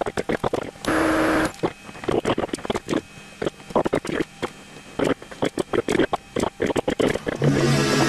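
Rapid, sped-up clatter of steel tools and parts being handled at a metal lathe: many quick clicks and knocks, with a short hiss about a second in. A steady low hum comes in near the end.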